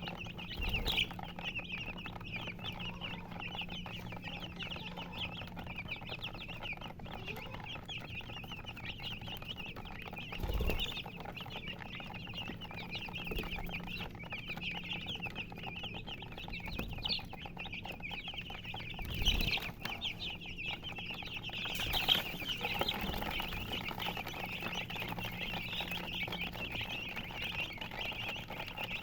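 A group of baby chicks cheeping continuously, many short high peeps overlapping. A few dull thumps stand out now and then.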